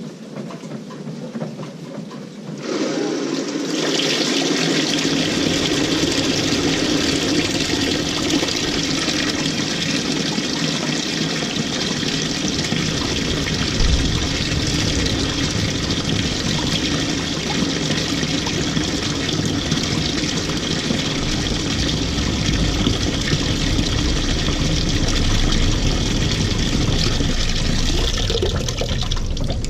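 LG 18 kg top-load washing machine filling with water. About three seconds in, water starts pouring into the tub with a steady rush that goes on without a break; its hiss thins out near the end.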